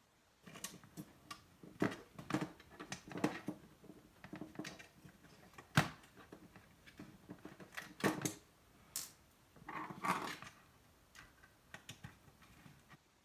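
Hands working on the plastic and metal parts of a car radio display unit during disassembly: irregular clicks, taps and light scrapes, with one sharp click a little before the middle.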